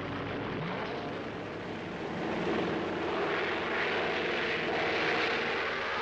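Propeller aircraft engine running at full power on a take-off run, growing louder as the plane comes closer.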